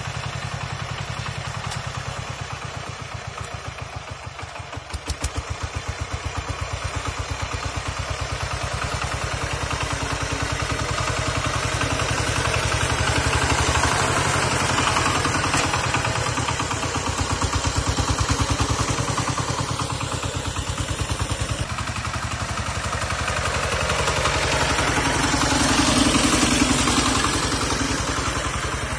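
Kentavr MB 1010DE-6 walk-behind tractor's single-cylinder diesel engine running with a steady, rapid knocking beat as it pulls a loaded firewood trailer over snow. It gets louder about five seconds in as the tractor moves off under load.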